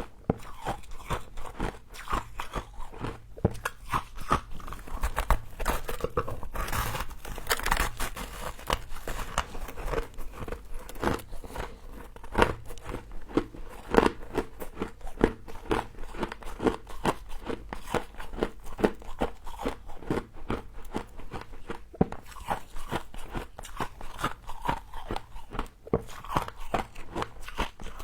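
Close-miked biting and chewing of frost: a dense, continuous run of sharp crunches and crackles as the frozen frost is bitten and ground between the teeth.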